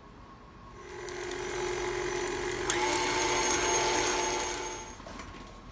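KitchenAid stand mixer motor starting up and running with a steady whine as it beats peeled bananas in its steel bowl. About three seconds in the whine steps up in pitch and gets louder, then it winds down near the end.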